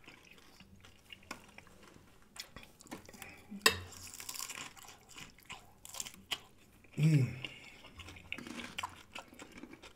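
Close-miked eating: biting and chewing tacos, with a sharp crunch about three and a half seconds in and a fork clicking and scraping on a plate. A short hum of the voice comes about seven seconds in.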